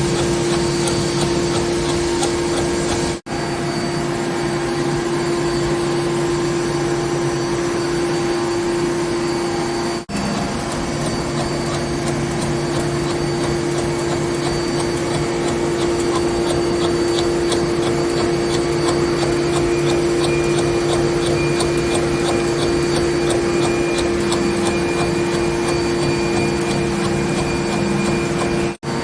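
CNC machine tool cutting steel: a steady machine hum with one strong tone over cutting noise, with a run of regular ticks through the middle. The sound drops out briefly three times.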